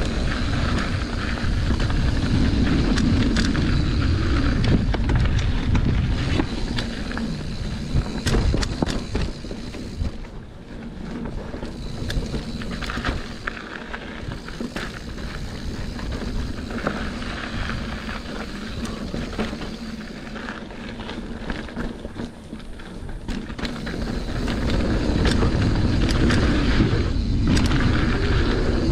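Mountain bike riding down a dirt flow trail: wind buffeting the camera's microphone, tyres rolling on dirt, and the bike clattering and rattling over bumps. The noise eases for a stretch in the middle and builds again near the end.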